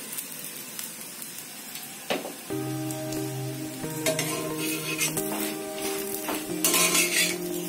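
Missi roti sizzling in ghee on a hot iron tawa, with a few clicks and scrapes of a steel spatula as it is turned. Background music with held notes comes in about two and a half seconds in.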